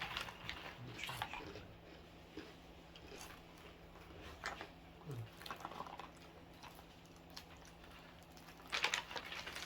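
Someone chewing a freeze-dried strawberry: faint, scattered crisp crunches and mouth clicks, a little louder near the end.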